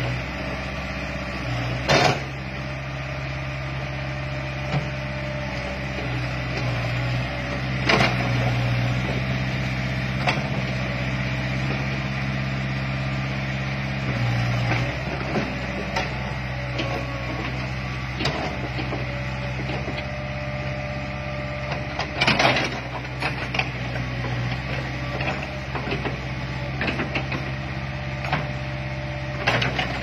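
Kobelco SK03 hydraulic excavator's diesel engine running steadily as the arm and bucket are worked, its low hum swelling and easing with the hydraulic load. Several sharp clunks break through, the strongest about two seconds in, around eight seconds and near twenty-two seconds.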